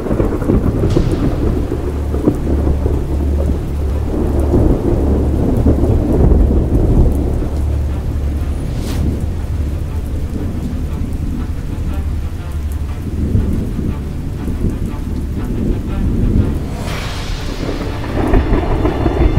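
Thunderstorm: deep rolling thunder over steady rain, with a sharp thunderclap about halfway through and another loud clap near the end.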